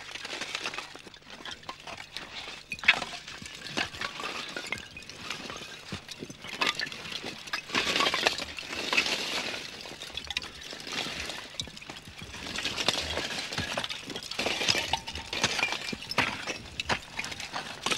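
Freshly burnt charcoal clinking and crunching as a charcoal kiln is raked open with long-handled rakes: many sharp, glassy clinks over a rough scraping, louder in spells about eight seconds in and again later on.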